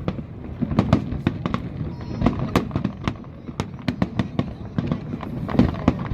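Fireworks display: a rapid, irregular run of bangs from bursting shells, several a second, over a steady low rumble.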